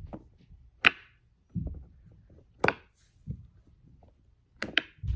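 Silicone pop-it fidget toy (a dinosaur-shaped poppet) having its bubbles pressed: four sharp pops, about one every second or two, with soft dull thuds between them. It is a poorly made poppet, "really bad", whose bubbles barely pop through to the other side.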